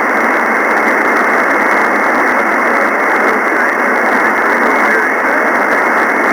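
Steady single-sideband receiver hiss from the FO-29 satellite downlink on an SDRplay receiver, cut off sharply below about 200 Hz and above about 2.4 kHz by the sideband filter, with no strong station above the noise.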